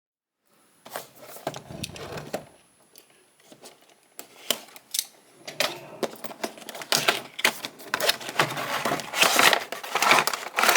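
Action figure packaging being opened and handled: plastic and cardboard rustling, crinkling and clicking in quick irregular bursts, busier and louder in the second half.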